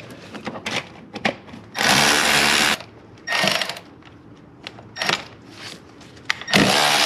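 Cordless electric ratchet whirring in short runs of about a second, with small clicks of socket and bolt between them, then a longer run starting near the end. It is backing out the hex bolts that hold a throttle body.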